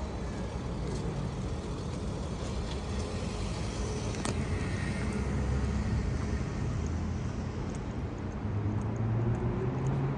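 City street traffic noise: a steady rumble of car engines and tyres, with a low engine hum growing stronger near the end and one sharp click about four seconds in.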